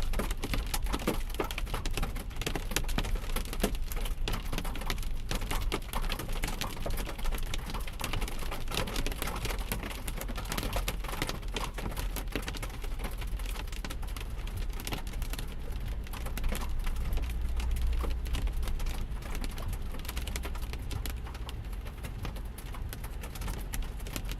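Hailstones hitting a vehicle, a dense, continuous rattle of small sharp impacts over a low steady rumble.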